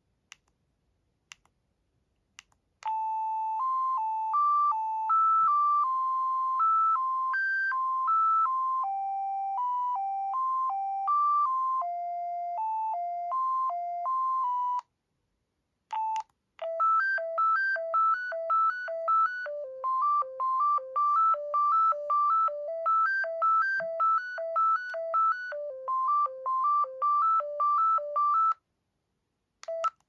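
Samsung SGH-T410 flip phone playing two ringtone previews, each a beeping electronic melody. A slower tune of stepped notes runs for about twelve seconds, then after a short keypad beep a faster tune hops quickly between high and low notes for about twelve seconds. A few faint button clicks come at the start, and another keypad beep near the end.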